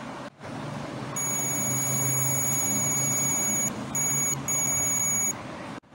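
Continuity beep of a DT3266L clamp meter, sounded through a small mobile-phone speaker wired in place of the missing buzzer as the test probes touch: one steady high-pitched beep of about two and a half seconds, then two shorter beeps. The beep signals a closed circuit between the probes and shows the improvised buzzer works.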